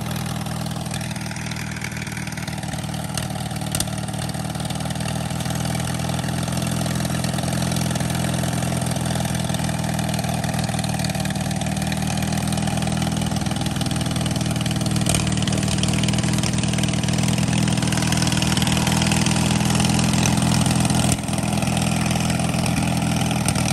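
Riding lawn mower engine running steadily at low speed, with a couple of brief knocks.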